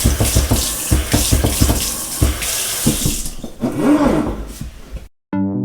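Water running hard from a sink faucet, with small knocks in the stream, then easing off about three and a half seconds in with a brief rising-and-falling squeal. Electronic music cuts in just before the end.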